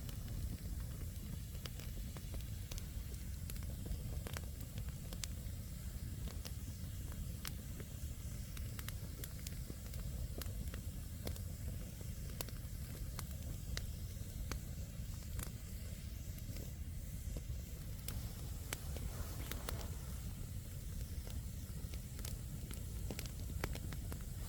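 Wood campfire (split firewood logs) burning, crackling with frequent small sharp pops at irregular intervals over a steady low rumble.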